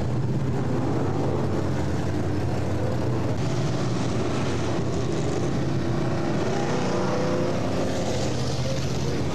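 Dirt late model race cars' engines running, several at once, making a steady, layered engine drone.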